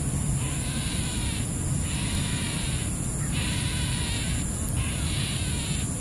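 Insects buzzing in regular pulses, each about a second long with short gaps between, over a steady low rumble.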